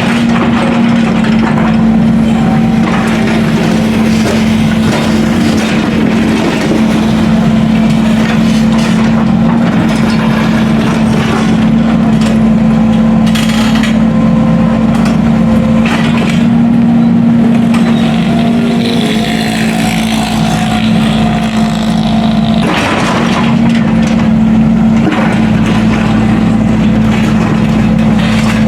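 Heavy diesel construction machinery running steadily at a road demolition dig, its engine holding one even pitch, with irregular clattering and crunching over it.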